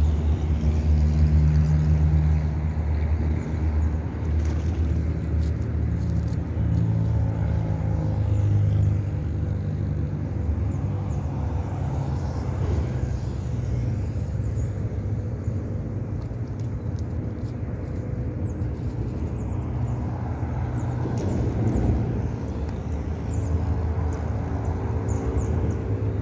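Low, steady motor-like hum made of several held low pitches that drift slowly, with a few faint clicks between about four and seven seconds in.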